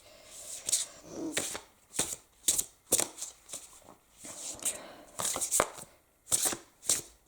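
An oversized oracle card deck being shuffled by hand: an irregular run of card-on-card slaps and swishes.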